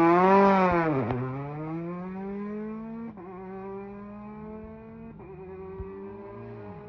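Rally car launching off the start line and accelerating away, the engine pitch climbing through each gear, with upshifts about a second, three seconds and five seconds in. The sound fades steadily as the car draws away.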